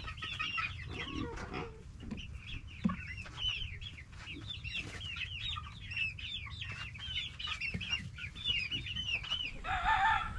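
A brood of young chicks peeping continuously: many short, high, rising-and-falling peeps overlapping. Near the end a louder, longer, lower call from an adult bird comes in.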